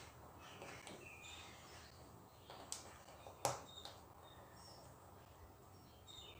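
Small plastic LEGO pieces being pressed onto a baseplate by hand: a few soft ticks and two sharper clicks a little under a second apart near the middle. Faint short high chirps sound behind them.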